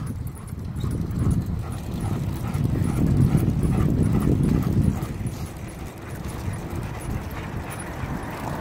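Wind rumbling on the microphone of a moving bicycle, with a German Shepherd trotting and panting alongside.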